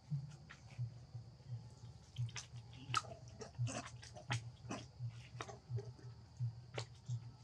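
A macaque chewing and biting papaya: wet smacking and crunching clicks over a regular low thud about three times a second, with a steady high hiss.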